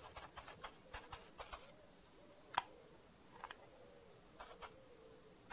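Small trumpet on a toy tricycle's handlebar being handled and adjusted: quiet, scattered clicks and taps, one sharper click about halfway through, over a faint wavering tone.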